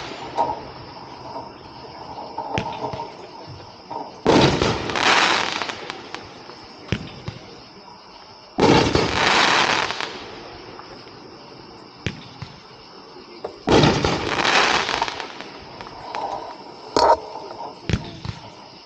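A 7-shot 1.4G consumer firework cake firing large breaking palm shells. Three big booms come about four to five seconds apart, each trailing off in a rumbling tail. Smaller sharp pops fall between them.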